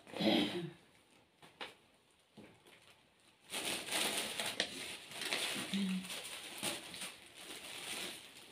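Shiny plastic wrapping of a parcel crinkling and rustling as a garment is pulled out of it, beginning about three and a half seconds in. A short voice sound at the very start.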